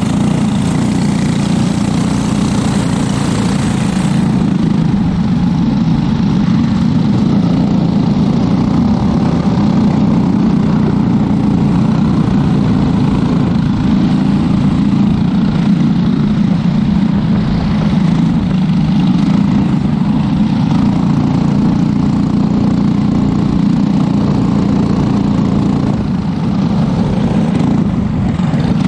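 Briggs & Stratton LO206 single-cylinder four-stroke kart engine heard from the driver's seat, running steadily at low revs with the karts around it.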